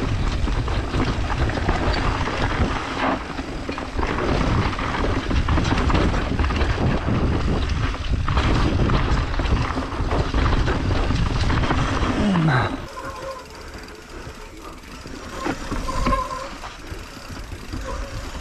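Wind buffeting the camera's microphone and a mountain bike's tyres and frame rattling over dirt and roots while descending a forest trail at speed. The noise drops sharply about two-thirds of the way through.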